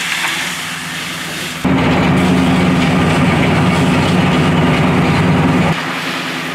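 A hiss for the first second and a half, then a fire engine's engine running loud and steady with a low hum for about four seconds, dropping off suddenly to a quieter steady hum near the end.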